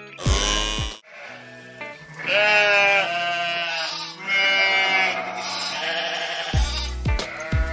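Sheep bleating: several long, wavering bleats one after another, with background music with a beat in the first second and again near the end.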